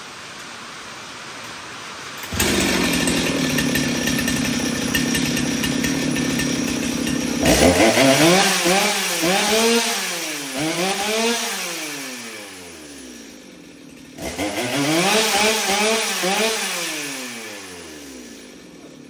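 Jonsered 2077 two-stroke chainsaw, fitted with a ported replacement cylinder, starting up about two seconds in and running steadily. It is then revved hard in repeated throttle blips that climb and fall back. It sags nearly to a stop, then revs up in another run of blips before settling down. This is the rebuilt saw's first run.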